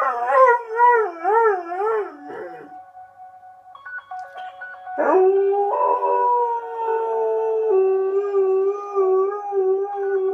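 Airedale terrier howling: a wavering howl for the first few seconds, then after a short pause a new howl that rises in pitch and is held long and fairly steady to the end.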